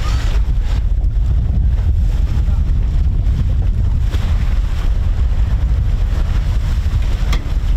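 Strong wind buffeting the microphone on a boat at anchor, a steady low rumble, with a couple of brief clicks about four seconds in and near the end.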